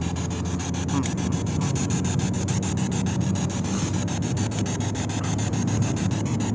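Steady low rumble of a car's engine and road noise heard inside the cabin while driving.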